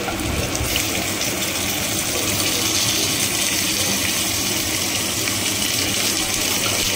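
Hot cooking oil sizzling in a frying pan, a steady hiss that swells a little in the first second and then holds.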